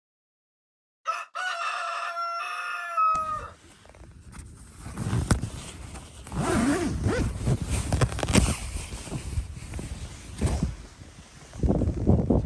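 A rooster crowing once, one long call of about two seconds that drops in pitch at the end. It is followed by strong wind gusting against the microphone, rising and falling.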